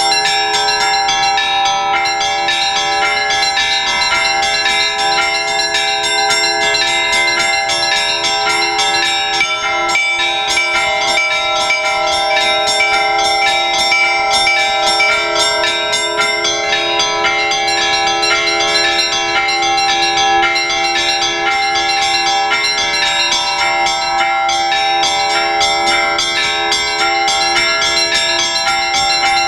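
Russian Orthodox church bells rung by bell ringers in a continuous peal, many bells of different pitches ringing over one another without a pause: the ringing that calls the faithful to the all-night vigil.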